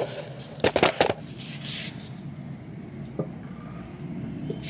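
Groceries being handled and put away: two sharp knocks about a second in, then a short rustle, and a faint click later.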